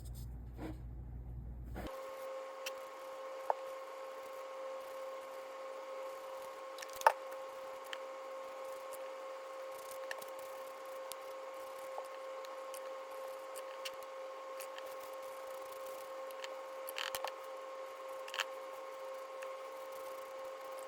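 A steady, even hum at one pitch with a faint hiss, broken by scattered soft clicks and taps, one sharper about seven seconds in.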